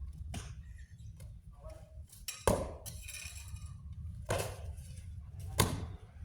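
Sharp strikes and stamps from a solo pencak silat performance: four separate impacts about one to two seconds apart, the second and last the loudest, each with a short ring.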